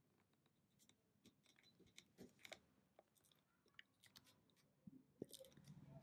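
Faint, scattered clicks and plastic rustling from a desktop RAM stick being handled and fitted to a motherboard, with one sharper click about five seconds in.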